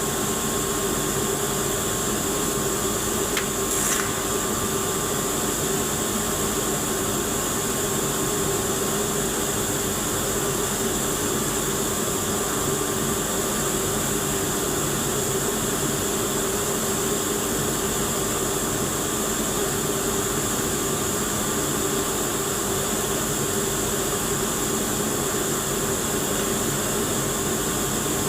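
TIG welding arc running steadily: an even hiss with a faint held hum, and a brief click about four seconds in.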